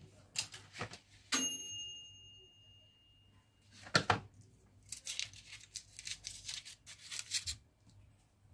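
Kitchen handling noises: a clear metallic ding about a second in that rings on for about two seconds, a sharp knock near the middle, then a few seconds of rapid scratching and rustling.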